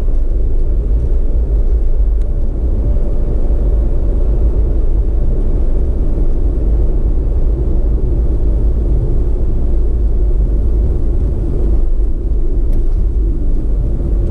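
Steady low rumble of a vehicle driving along, engine and road noise heard from on board.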